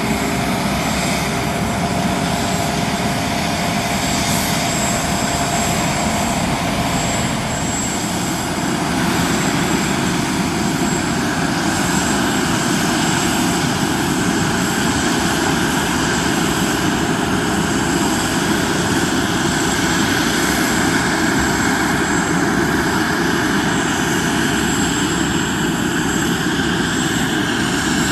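Airbus A330 moving under tow with its tug: a loud, steady rumble with a thin high whine running through it.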